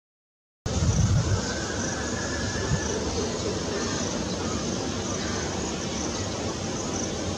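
Steady outdoor background noise, like distant traffic, starting suddenly just under a second in with a brief low rumble at the start; no clear bird call stands out.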